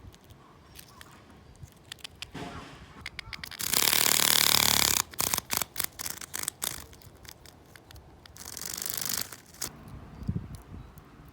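Large brown cicada (aburazemi) buzzing in bursts with its body-vibrating muscles: one loud rasping buzz of just over a second about four seconds in, broken into sharp clicks as it stops, and a second, shorter buzz near the end.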